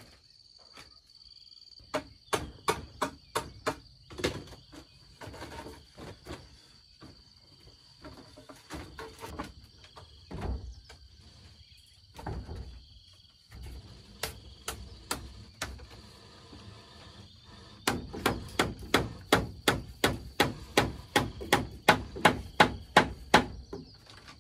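Runs of quick, sharp tool strikes, about three a second, as from chopping or hammering, with a dense run in the last few seconds. A steady high insect drone sounds behind them.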